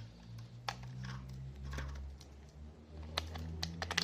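Scattered light clicks and taps of hands handling small plastic parts and test gear while a multimeter is readied to test a fuse, a little denser near the end, over a low steady hum.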